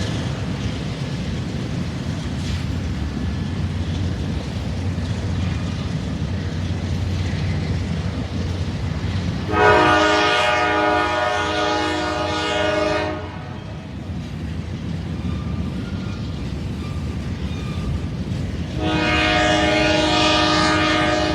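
Freight train locomotive rumbling steadily as it approaches, sounding its multi-note air horn in a long blast of about three and a half seconds midway, then a second long blast beginning near the end.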